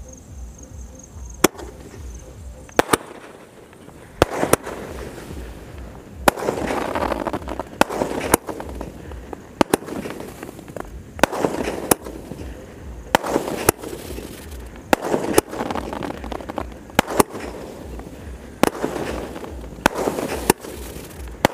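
An Ajanta zig-zag 12-shot aerial firework cake firing shot after shot: sharp bangs roughly every one to two seconds, with a swelling hiss between them as shells go up and burst into sparks.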